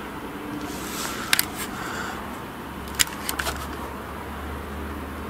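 Handling noise from a handheld camera being picked up and moved: a few sharp clicks and knocks in two short clusters, about a second in and again about three seconds in, over a steady low hum.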